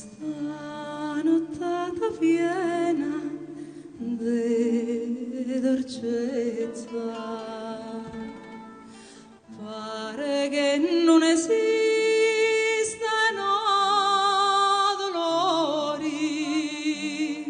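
A woman singing solo with a wide vibrato over instrumental accompaniment, with a short dip about nine seconds in and long held notes after it.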